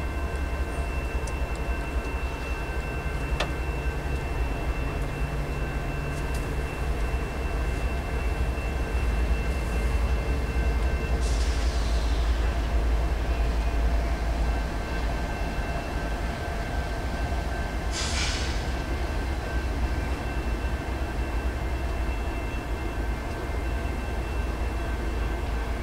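Canadian National freight train rolling across a steel railway bridge, heard from a distance as a steady low rumble. Two short hisses come partway through, about seven seconds apart.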